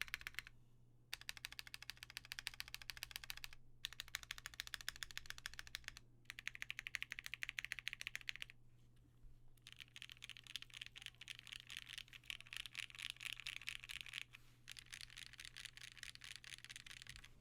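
Fast typing on a custom mechanical keyboard with lubed vintage Cherry MX Black linear switches, PBT keycaps and an aluminum plate. The keystrokes come in dense runs of clacky strokes, broken by several short pauses.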